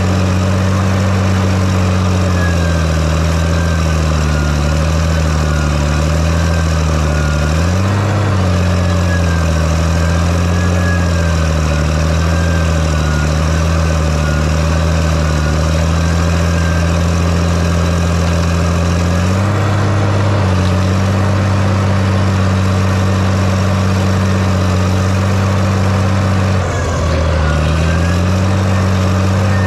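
Volvo EC220E excavator's diesel engine running at steady working throttle, its pitch wavering with load and dipping briefly near the end, with a faint wavering whine above it.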